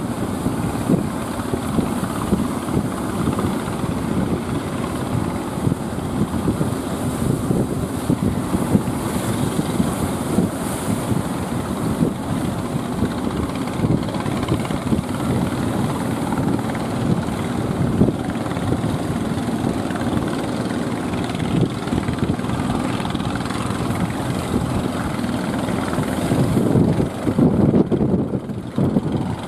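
Wind rumbling on the microphone over breaking surf, mixed with the engines of wooden fishing boats motoring through the waves. The rumble grows louder and gustier near the end.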